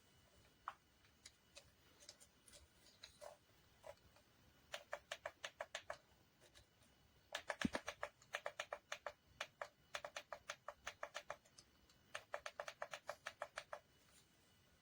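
Runs of rapid light clicks, about seven a second, in four separate bursts, against near silence.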